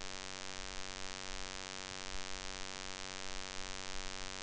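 Steady electrical mains hum, a buzz with many evenly spaced overtones, over a constant hiss from the recording microphone.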